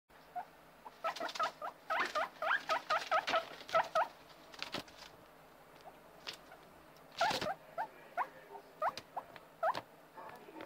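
Guinea pigs squeaking: short rising squeaks in quick runs, several a second, between about one and four seconds in, then more scattered, with a few sharp knocks and rustles, the loudest knock a little after seven seconds.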